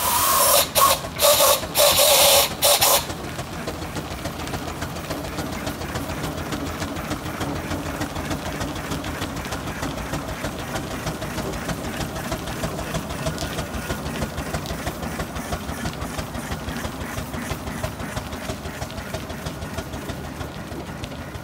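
Fowler steam roller under way: for about the first three seconds, loud broken blasts of steam hissing. Then the steam engine runs with a steady, regular beat as the roller travels.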